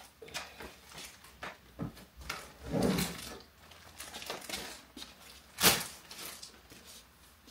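Handling noise: a plastic basket of clothes packed in clear plastic bags is picked up and moved, with crinkling of the bags and light knocks. One sharper knock comes late on.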